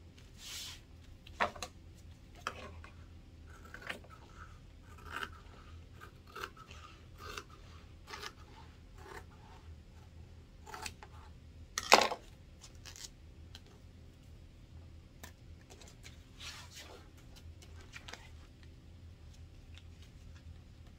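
Fabric shears snipping through waterproof canvas in short, irregular cuts, with a sharp knock about halfway through, the loudest sound, over a low steady hum.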